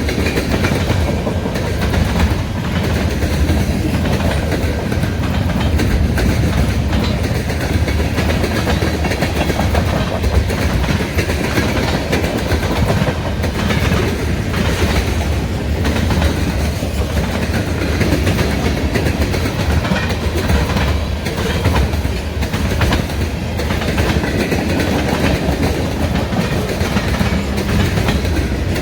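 Freight cars rolling past with a steady low rumble, the wheels clacking sharply at intervals as they cross a half-inch break in the rail.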